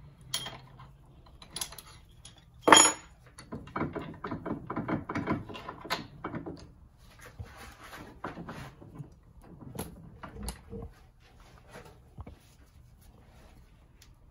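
Metal tools and parts of a mountain-bike rear shock handled on a workbench as its damper shaft is clamped and worked on: one loud sharp clank about three seconds in, then about three seconds of rapid clicking and rattling, then lighter scattered knocks.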